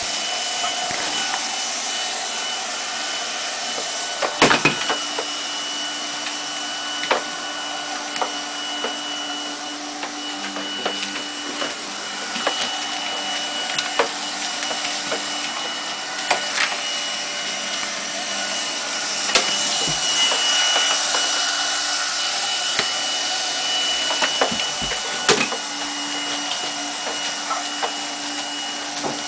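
Handheld window-cleaning vacuum running steadily, a hiss with a thin high whine held throughout, broken by scattered sharp knocks and clicks.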